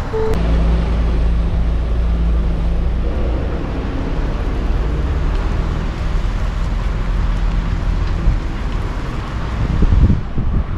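Truck's diesel engine running at a low, steady pitch over a haze of noise, swelling briefly near the end.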